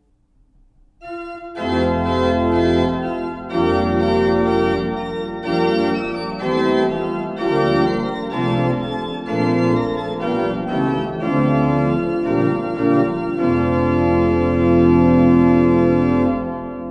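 Organ music: full sustained chords over a deep bass line, coming in about a second and a half in, moving through a slow chord progression and closing on a long held chord that fades away at the end.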